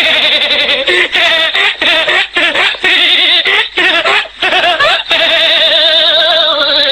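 Laughter sound effect: a person laughing hard without stopping, broken by short gaps for breath.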